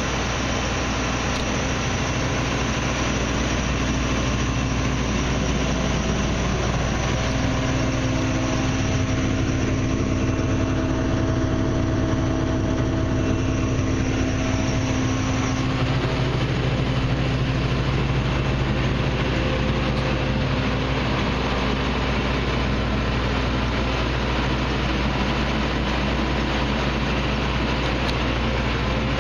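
Claas Tucano 430 combine harvester's diesel engine running steadily at idle, with a faint added whine for several seconds midway.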